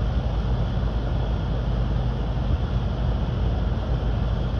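Steady low rumble with a faint hum and no separate events, like a running engine or machine mixed with wind on the microphone.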